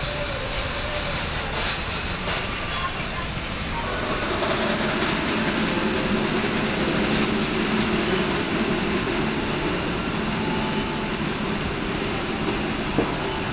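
Car assembly-line factory noise: a steady rumble and hum of line machinery, with a few sharp tool clicks near the start and one near the end. The hum grows a little louder about four seconds in.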